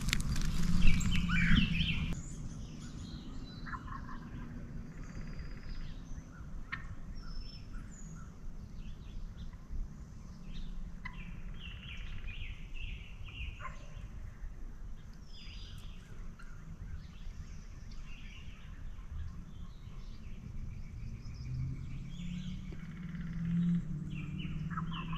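Birds calling at dawn: many short, scattered chirps throughout over a low steady hum that grows louder near the end, with a loud brushing noise in the first two seconds.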